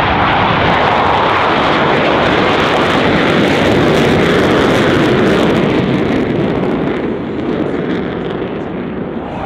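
Loud jet engine noise from Boeing F/A-18 Hornets, each powered by two General Electric F404 turbofans. It holds steady, then eases off slightly over the last couple of seconds.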